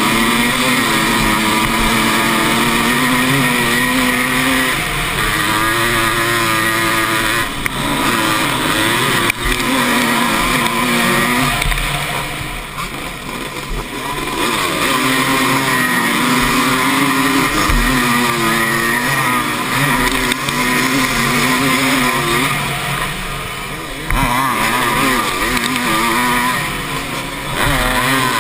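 Motocross bike's engine at race pace, heard on board, its pitch rising and falling as it revs up through the gears. It backs off twice, about halfway through and again near the end, then picks up again.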